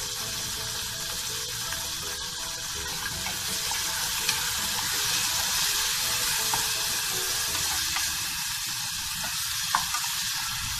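Chopped onion, tomato, green chillies and curry leaves sizzling steadily in hot oil in a non-stick saucepan while being stirred with a wooden spatula. A couple of light knocks of the spatula on the pan come about four and nine seconds in.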